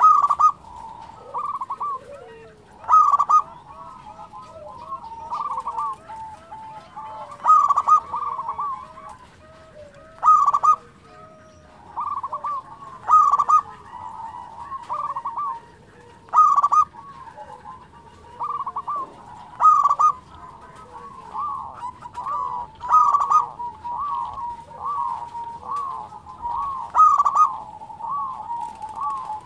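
Zebra dove (perkutut) singing: a loud phrase of quick, rolling coos comes about every three to four seconds, with softer cooing notes between the phrases.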